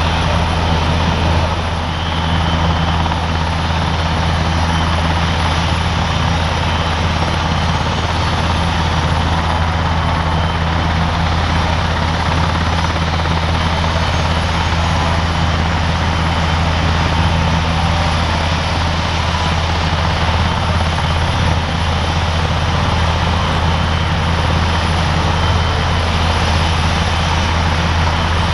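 NH90 tactical transport helicopter running on the ground, its twin turboshaft engines and main and tail rotors turning steadily. It makes a deep, even rotor drone with a thin steady turbine whine above it.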